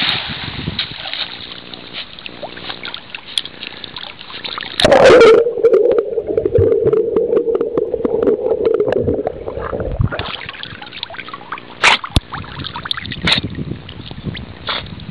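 Water splashing as a dog swims and dives to retrieve. About five seconds in comes a loud splash, then about five seconds of a muffled, steady hum as heard underwater, before surface splashing and a few sharp clicks return.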